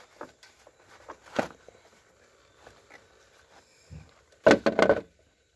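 Hands handling parts: light clicks and plastic rustling, a single knock about a second and a half in, then near the end a louder cluster of knocks and plastic crinkling as a flexible plastic funnel is set under a garden tractor's hydraulic oil filter.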